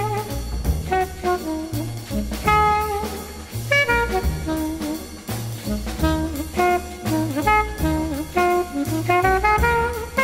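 Upbeat jazz background music: a horn melody of short notes over walking bass and drums.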